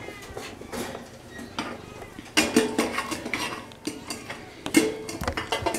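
Wire cage rattling and clinking as a cat is petted inside it, with the loudest bursts about two and a half seconds and five seconds in.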